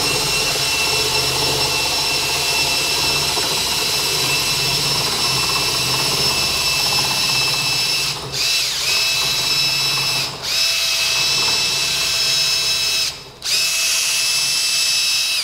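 Cordless drill running steadily with a high motor whine, spinning a bundle of wires to twist them together for a neat harness. It stops briefly three times in the second half and cuts off near the end.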